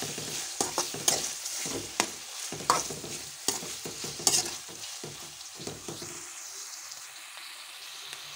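A slotted metal spatula scrapes and knocks against a metal pan, stir-frying chicken, cabbage and green chillies in hot oil, over a steady sizzle. The stirring stops about six seconds in, leaving only the sizzle.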